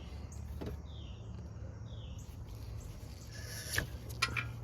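Quiet background with a steady low hum and a few faint, high, falling chirps, then two short clicks near the end.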